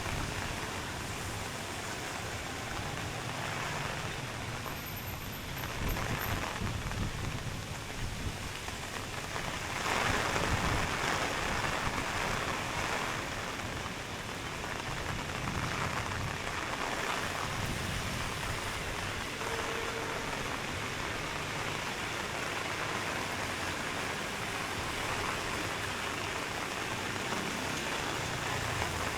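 Steady rain hiss on a wet street, swelling louder for a couple of seconds about ten seconds in.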